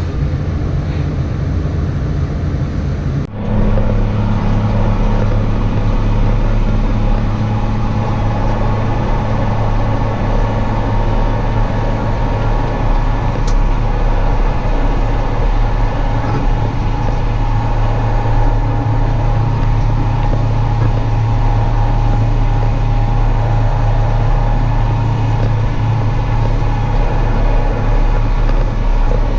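A vehicle engine running steadily under load. About three seconds in, the sound changes abruptly and becomes louder and deeper, then holds steady.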